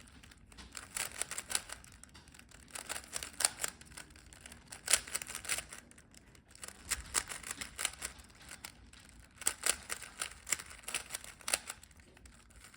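Rubik's cube being turned by hand during the last-layer stage of a solve: runs of quick plastic clicks and clacks as the layers snap round, in bursts with short pauses between.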